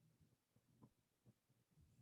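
Near silence: faint room tone with a few very soft low bumps.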